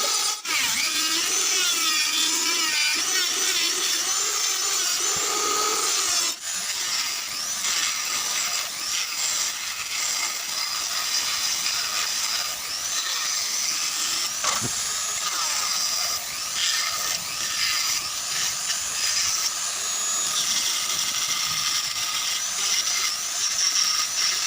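A small electric power tool cutting or shaping wood. The motor's whine wavers in pitch as the load changes, with two very brief breaks, about half a second in and about six seconds in.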